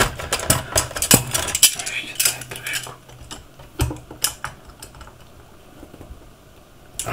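Irregular clicks, clinks and knocks of a shoe and hand tools being handled on a hard work surface while a new sole is fitted. They come thick and fast for about three seconds, then thin out to a few separate knocks.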